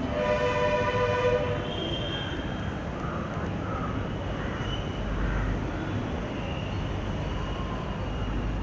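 A horn sounds once, a steady multi-tone blast lasting about a second and a half, over a steady low background rumble.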